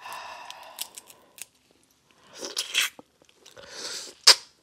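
Boiled crawfish being cracked and peeled by gloved hands, with small clicks of shell, then wet sucking sounds as it is eaten and a sharp mouth smack near the end.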